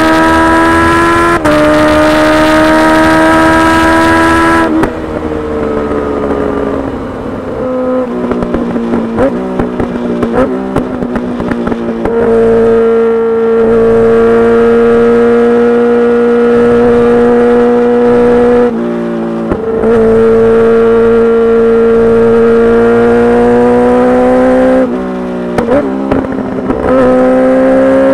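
Kawasaki Ninja H2's supercharged inline-four through a full titanium exhaust. It revs up hard with a quick upshift, then the throttle closes and the revs fall, with irregular crackling on the overrun. It then holds a steady pitch and pulls up through the gears again, with short breaks at each shift.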